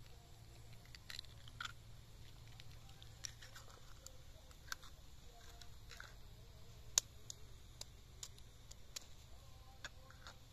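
Faint, irregular crackles and sharp clicks, one louder click about seven seconds in, over a low steady hum: tomato sauce cooking in a steel pan over an open wood fire while eggs are cracked into it.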